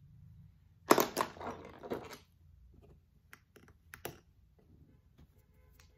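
A burst of rustling and clattering about a second in, then a few light clicks: makeup brushes being handled and wiped clean.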